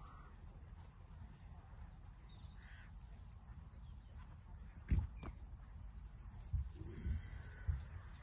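Wind rumbling on the microphone, with a few short bird calls and several dull thumps from about five seconds in.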